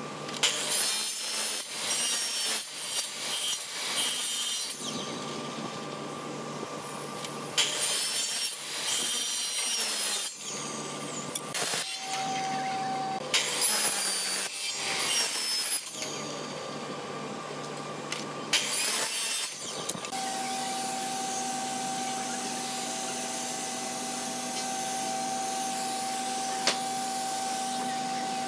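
Electric miter saw cutting through hardwood strips: five loud cuts of one to three seconds each in the first two-thirds, with the saw quieter between them. For the last eight seconds there is a steady hum with one steady tone and a single click near the end.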